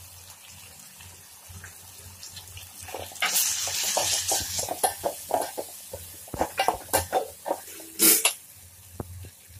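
A ladle stirring frying onions, chillies and tomato in a metal pot: scrapes and knocks against the pot with a light sizzle. They start about three seconds in, and the loudest knock comes near the end.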